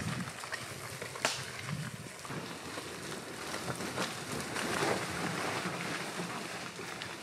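Land Rover Defender SUV creeping slowly down a rough woodland track: a low vehicle rumble and tyre noise over leaves and dirt, with a few sharp cracks, the clearest about a second in.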